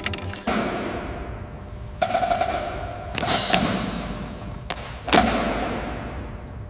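Four heavy, sudden impacts, each followed by a long ringing fade, about one every one to two seconds.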